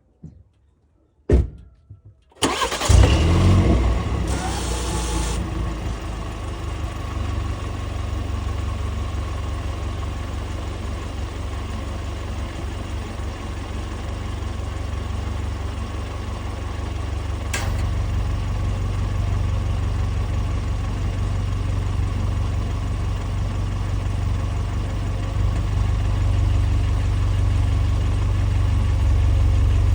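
BMW G20 3 Series engine starting after a click, then settling into a steady idle. A single sharp knock comes about halfway through, after which the idle sounds deeper and slightly louder.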